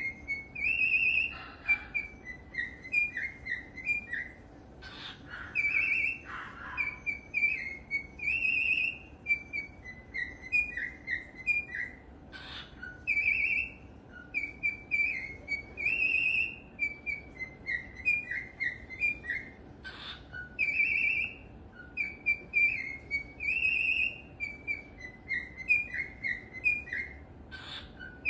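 Cockatiel whistling a learned tune, the same chirpy phrase repeated again and again every few seconds, with a few short harsh notes between phrases.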